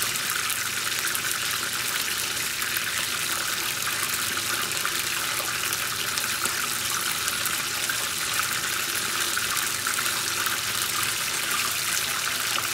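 Chicken wing drumettes deep-frying in corn oil at around 350°F: a steady, dense sizzle with fine crackling. It is the second fry that crisps the skin.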